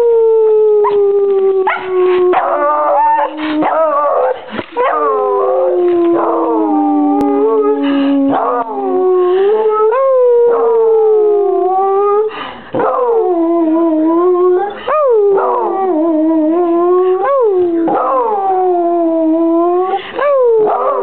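Beagle howling: one long howl that slides slowly down in pitch over the first eight seconds or so, then a run of shorter howls about every two and a half seconds, each leaping up sharply and falling away.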